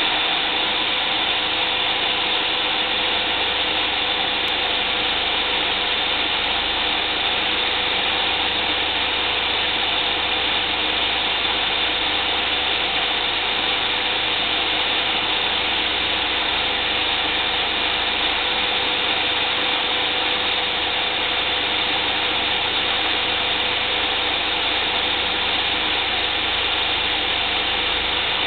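Homemade wood lathe driven by a 6-amp corded electric hand drill, running steadily at one speed with a steady whine over a rattling mechanical noise.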